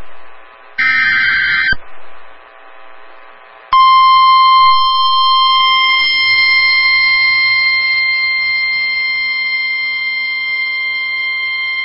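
NOAA Weather Radio alert signalling: the last one-second burst of SAME digital header tones ends about two seconds in, marking the start of a new warning. After a short pause the steady 1050 Hz Warning Alarm Tone sounds for about nine seconds and cuts off abruptly.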